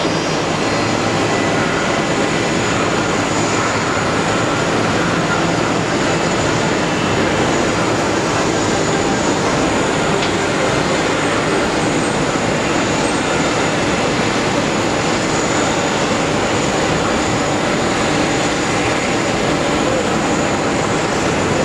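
Steady, even roar of an Airbus A380's four jet engines heard from a distance as the airliner rolls along the runway after landing.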